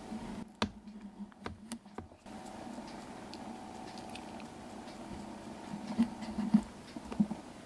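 A kitten nosing and pawing right at the microphone: soft rustling on a fleece blanket with scattered sharp clicks and knocks, the loudest near the end.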